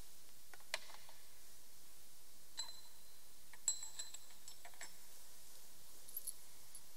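Light clinks of altar vessels as the chalice is prepared. Two of them ring on for about a second with a clear high tone, about two and a half and three and a half seconds in, the louder one second.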